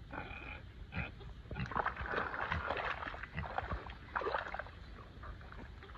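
Pot-bellied pig wallowing and rooting in a wet mud pit, sloshing and splashing the mud, with some grunting. The wet churning comes in two busier stretches, a longer one about two seconds in and a shorter one about four seconds in.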